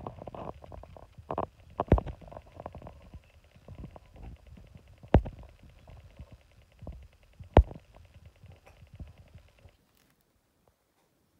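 Pages of a photography book being turned and handled: paper rustling with several sharp knocks, stopping about ten seconds in.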